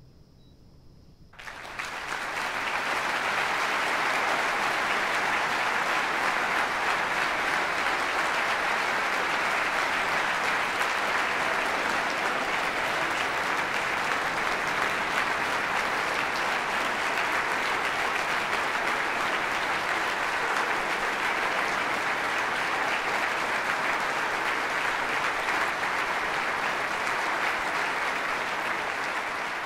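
Concert audience applauding after a symphonic band piece. The clapping starts suddenly about a second and a half in, after a moment of near quiet, then stays steady and full, easing slightly near the end.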